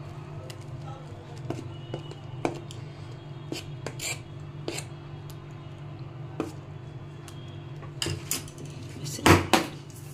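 A metal spoon clinking and scraping against a steel container as thick batter is poured in and spread, over a steady low hum. About nine seconds in come several loud knocks as the filled steel container is handled and set down.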